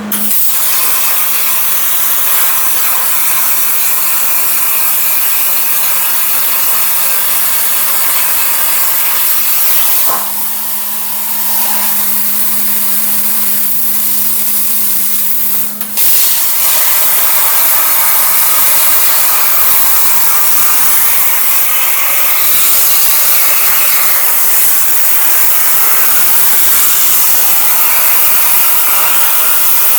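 ArcDroid CNC plasma torch cutting thick metal plate at a slow feed rate: a loud, steady hiss of the compressed-air plasma arc. A steady low hum underneath stops about 16 seconds in, with a brief drop in level just before.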